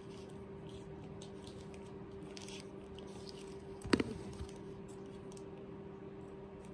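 Small taps and crinkles of gingerbread-house kit pieces and their plastic wrapping being handled on a table, with one sharper knock about four seconds in, over a steady faint hum.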